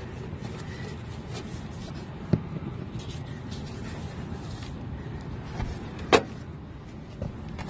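A steady low rumble, with a sharp click about two seconds in and a louder click about six seconds in, as metal run-capacitor cans are handled against the sheet-metal control panel of a rooftop AC unit.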